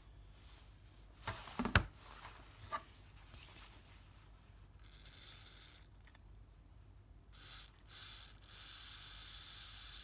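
Aerosol PTFE (Teflon) spray lubricant hissing through its straw into the bearing of a BMW heater blower motor: one burst of about a second, a short squirt, then a steadier spray of about two seconds near the end. The bearing is being lubricated because the motor squeaks and rattles. Before the spraying come a few sharp knocks and clicks.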